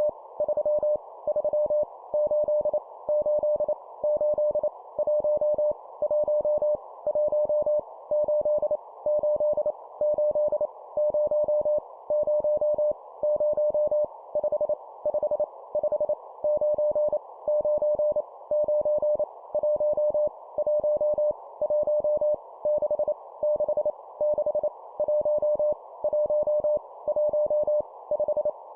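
Morse code at 25 words per minute, sending random numbers repeated three times: a steady tone of about 600 Hz keyed on and off in dots and dashes, over a constant band of hiss.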